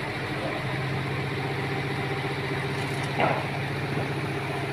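A vehicle engine idling steadily, with one brief higher-pitched sound about three seconds in.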